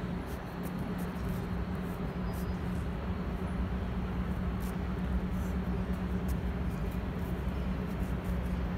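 Steady city traffic noise with a constant low hum running through it.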